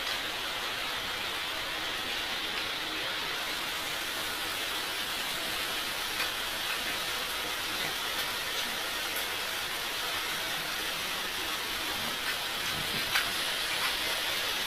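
Steady hissing background noise, with a few faint clicks of plastic shoe-box panels being fitted together.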